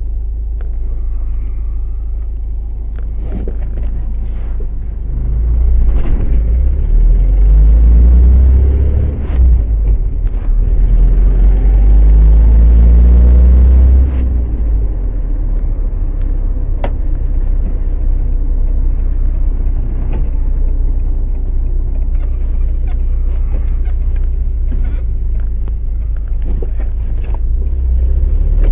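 Loud, deep rumble with scattered clicks and knocks. About ten seconds in, a rising tone swells for a few seconds, the loudest part, then fades back into the rumble.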